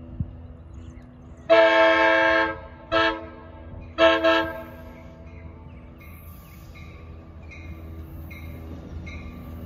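Amtrak passenger locomotive's air horn sounding three blasts: a long one about a second and a half in, a short one, then a medium one around four seconds in. The low rumble of the approaching train grows slowly under it.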